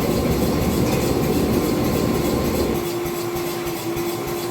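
A forge running with a steady low rumble that drops away almost three seconds in, leaving a steady humming tone.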